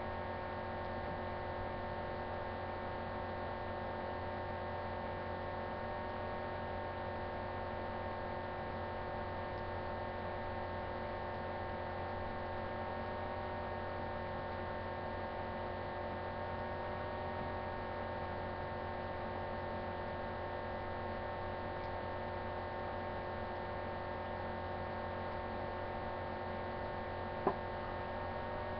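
Steady electrical hum made of several unchanging tones over a faint hiss, with a single short click near the end.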